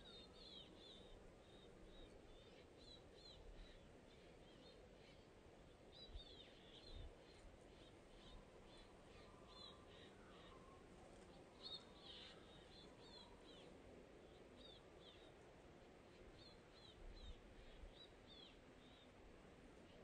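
Small songbirds calling faintly: short, high chirps repeated many times, in little clusters, over quiet outdoor background noise.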